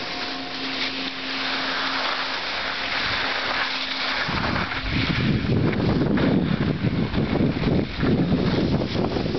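Skis hissing over snow on a downhill run, with wind buffeting the microphone, turning into a loud, gusty rumble from about four seconds in.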